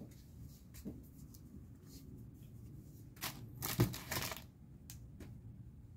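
Plastic packaging rustling and crinkling as it is handled, in a few short bursts, the loudest about four seconds in, with a few light knocks.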